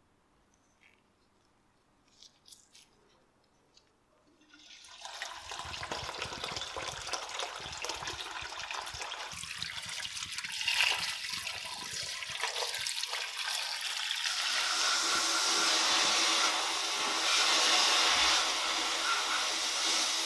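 Near silence with a few faint clicks, then from about four and a half seconds in a rushing, splashing water-like noise over metal parts in a steel tray. From about fourteen seconds in a louder steady hiss takes over: a sandblasting cabinet nozzle blasting sand and 100-grit aluminium oxide at 8 bar.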